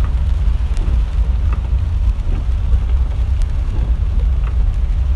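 Steady low rumble inside a car driving through a flooded street, with a few faint ticks.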